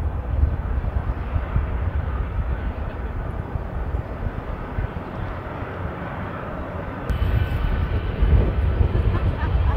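Jet aircraft engine noise, a steady rush over a low rumble, growing louder about seven seconds in.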